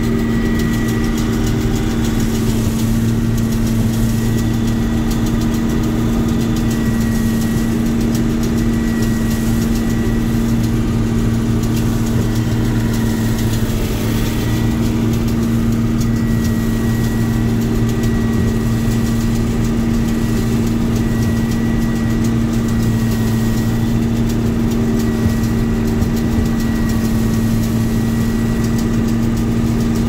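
Combine harvester running steadily while harvesting: an even engine and machinery drone with a faint high whine above it.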